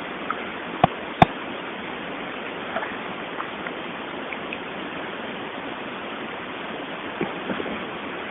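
Steady hiss of background noise, with two sharp clicks about a second in and a few faint small clicks scattered later.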